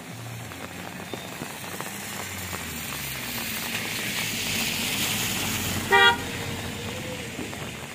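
A motor vehicle passing by, its noise swelling and then fading, with one short horn toot about six seconds in.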